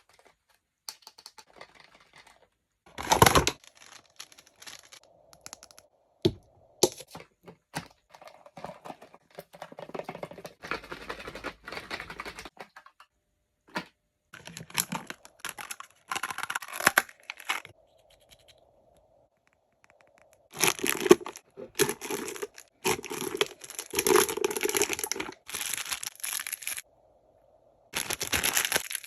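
Toy packaging being torn open and crinkled by hand, in irregular bursts of tearing and crackling with short pauses.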